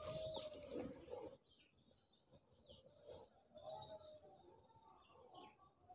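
Near silence, with faint bird chirps in the background.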